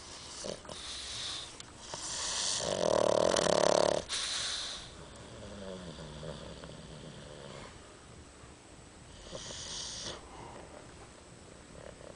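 A pet snoring in its sleep, in long noisy breaths. The loudest snore comes about two to four seconds in, with a quieter one near the ten-second mark.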